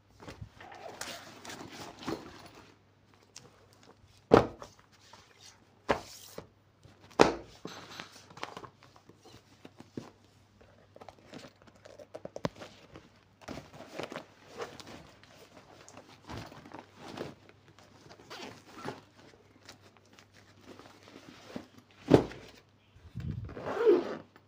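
A fabric school backpack being handled and packed: scattered rustling and handling noise, broken by a few sharp thuds.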